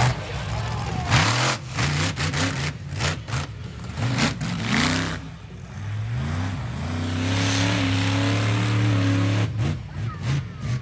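Monster truck engine revving in short rising bursts, then climbing and held at high revs for about three seconds before dropping off. Sharp crackles and knocks sound over the first half.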